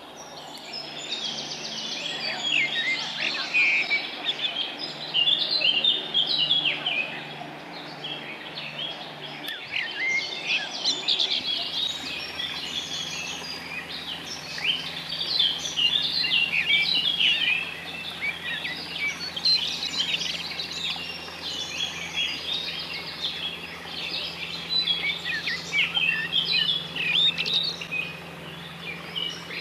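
Dense chorus of many songbirds singing and chirping at once, with a faint steady low hum underneath.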